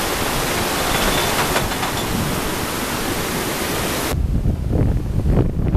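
Outdoor rushing noise for about four seconds, then an abrupt change to low, uneven wind buffeting on the microphone.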